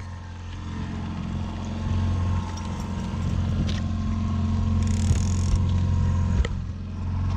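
A fishing boat's engine running steadily with a low, even hum, with a couple of brief clicks about halfway through and near the end.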